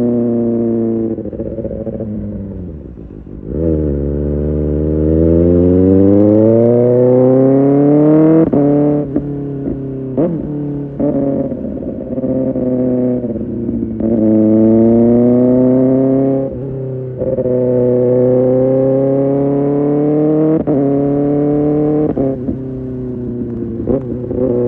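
Kawasaki Ninja ZX-6R inline-four with an Arrow Pro Race exhaust under way. The revs drop about two seconds in, then climb steadily for several seconds, followed by a run of quick gear changes, brief breaks in the engine note, and further pulls up through the revs.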